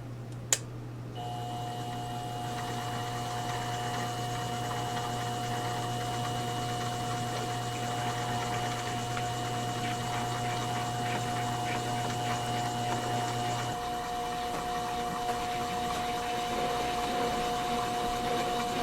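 A drill press motor switches on about a second in and runs steadily with a constant whine while a 7/16-inch bit drills into a glass doorknob held in a vise. The sound shifts a little about two-thirds of the way through as the drilling goes on.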